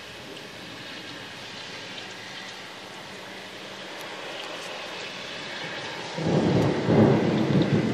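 Steady rain falling, then about six seconds in a loud rumble of thunder breaks in and rolls on.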